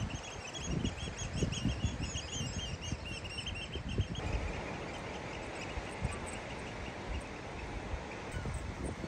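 A small bird singing a fast run of high chirping notes that stops about four seconds in, over gusty wind rumbling on the microphone and a steady hiss.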